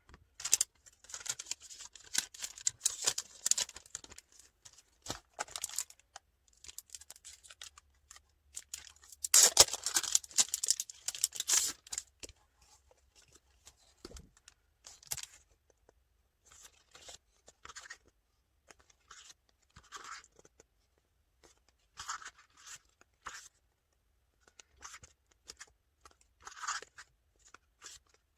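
Packaging being torn open and handled: irregular scratchy tearing and rustling, longest and loudest about ten seconds in, then in short scattered bursts.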